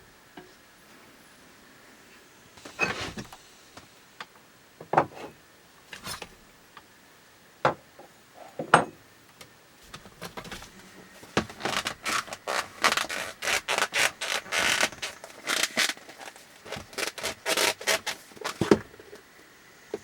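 Handling noises: a few scattered knocks and clicks, then, a little past halfway, a long run of quick scraping strokes.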